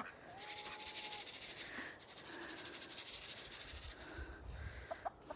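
Dry rustling, rasping noise in two long stretches, one after the other, with a single short bird call near the start and a few brief chirps from the poultry near the end.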